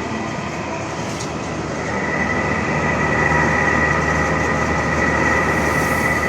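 Window air conditioner's motor running with a steady mechanical noise and a high whine that swells in about two seconds in: the faulty motor sound.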